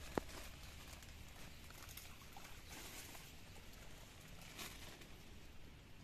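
Faint rustling with one sharp click just after the start.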